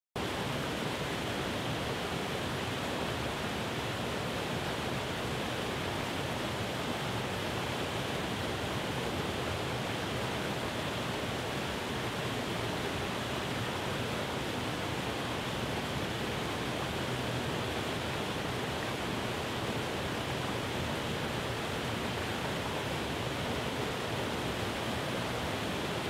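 Small river waterfall cascading over rock ledges into a pool: a steady, unbroken rush of water.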